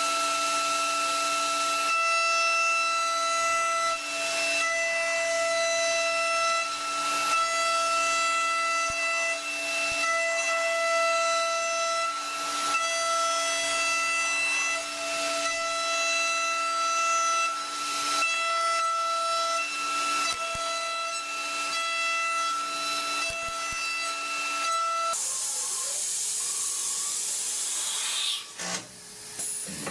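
CNC milling machine running, with a steady whine from the spindle and cutter. About 25 seconds in the whine stops and a hiss takes over, with a few knocks near the end.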